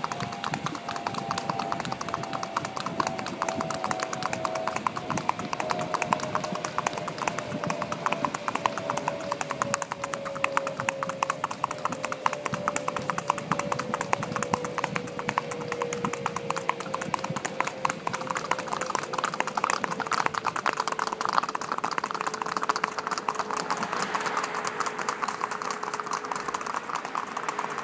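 Paso Fino horses' hooves on pavement in quick, even hoofbeats, many strikes a second. A steady tone underneath slowly falls in pitch, and a hiss like car tyres grows near the end.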